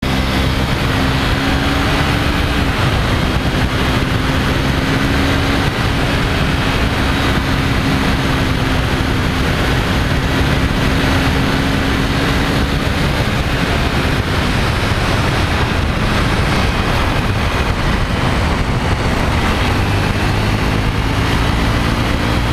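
Sport motorcycle's engine running at a steady road speed, its pitch shifting slightly now and then, under a dense rush of wind and road noise on a fairing-mounted camera's microphone.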